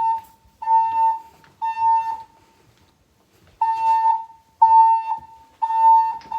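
Fire alarm voice-evacuation speakers sounding the evacuation tone: a steady mid-pitched beep about half a second long, repeated once a second in groups of three with a short pause between groups. This is the temporal-three evacuation signal that plays between the spoken fire-emergency announcements.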